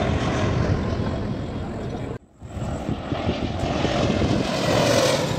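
Passenger jet airliner engines, a steady low rumble with a broad rushing noise. The sound cuts out for a moment about two seconds in, then the jet noise returns as the airliner passes low overhead.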